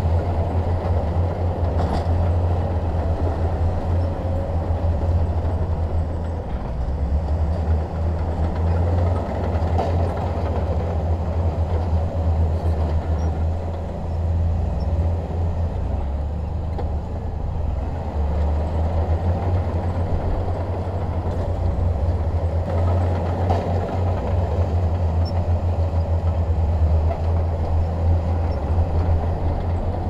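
Heavy diesel engine of earthmoving machinery running steadily: a deep, continuous drone with a rough noisy layer above it.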